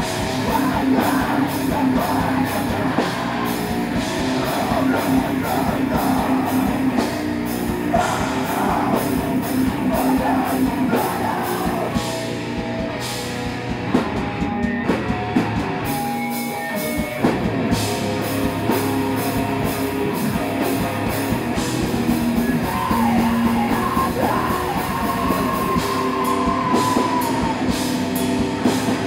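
Heavy metal band playing live in a small room: distorted electric guitars, bass guitar and fast drums, with shouted vocals. The music drops out briefly about halfway through, then comes back in.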